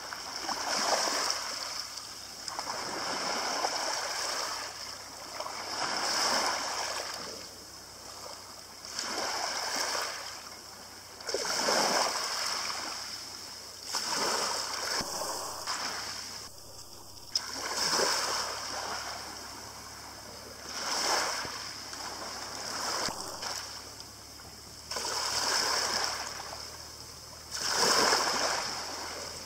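Small sea waves breaking and washing up over a shingle beach, a swell of splashing hiss every two to three seconds.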